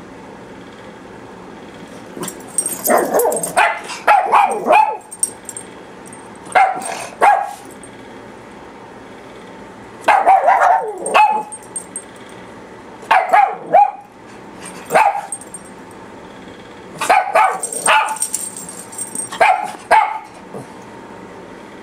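Two papillons barking in short runs of quick barks, a run every few seconds with brief pauses between.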